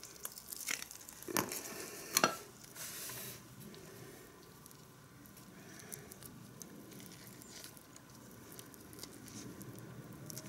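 Gloved fingers squeezing exhaust assembly paste from a tube and smearing it around the inside of a motorcycle silencer's metal inlet sleeve: faint squishing and rubbing, with a few sharp clicks in the first couple of seconds.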